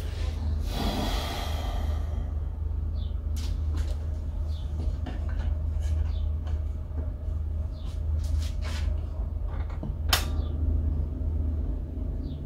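Old valve-era radio-gramophone switched on with a click, then a steady low mains hum from its amplifier and speaker, with scattered crackles and clicks and one sharper click about ten seconds in. The record's music itself is not heard.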